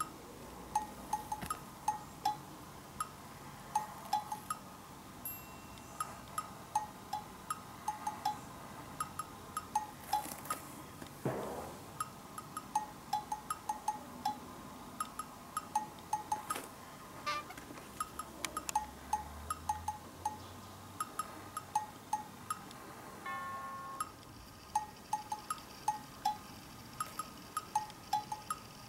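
Light background music of short, bell-like plinking notes in a bouncy, steady rhythm.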